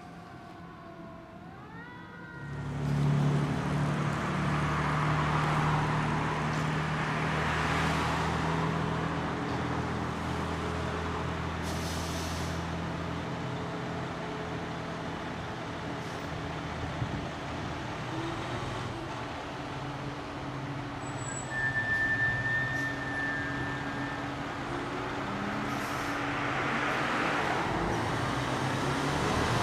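A siren glides down and fades in the first couple of seconds. Then a fire engine's diesel engine comes on suddenly and runs with a steady low drone as the truck idles and pulls out of the station bay. The engine note rises near the end as it drives onto the street.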